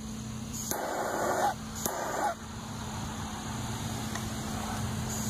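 Handheld propane torch burning steadily as its flame scorches a wooden knife handle, with a couple of brief louder bursts of handling noise in the first two seconds.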